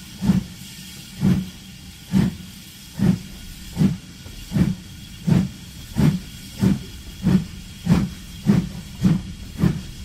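Old steam locomotive's exhaust chuffing, a regular run of about fourteen steamy beats that quicken from roughly one a second to nearly two a second as the engine picks up speed.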